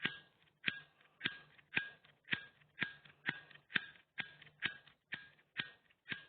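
A lighter struck over and over without catching: about a dozen sharp clicks, roughly two a second. It is a dead lighter that no longer works.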